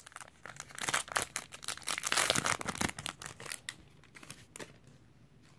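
Plastic wrapper of a baseball card pack crinkling and tearing as it is opened. The crackling stops about four and a half seconds in.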